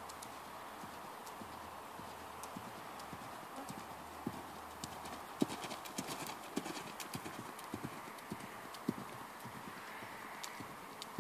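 Hoofbeats of a ridden horse trotting on sand arena footing: a regular series of soft thuds, about two a second, loudest through the middle.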